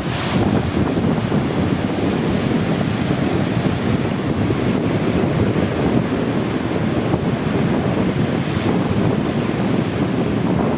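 Steady rush of the sea, with wind buffeting the microphone.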